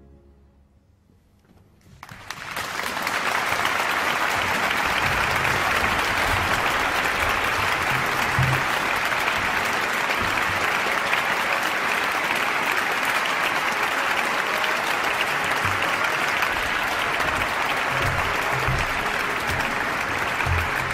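A large audience applauding in a big stone church. The clapping breaks out about two seconds in, after a brief hush following the last note of the piece, and then goes on steadily.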